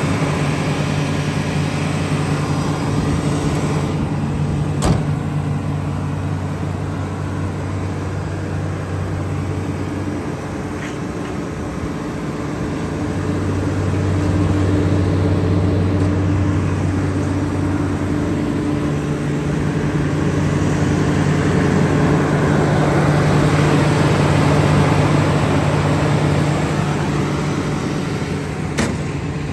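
Komatsu PC360-10 excavator's six-cylinder diesel engine idling steadily, its hum swelling and fading, with a few sharp clicks.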